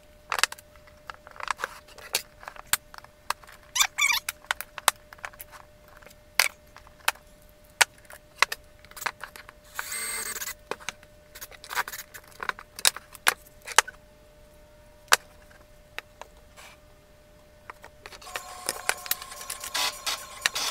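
Plywood model parts clicking and clacking against each other and the workbench as they are handled and fitted together: many short, irregular knocks, with a brief hiss about halfway and denser clattering near the end.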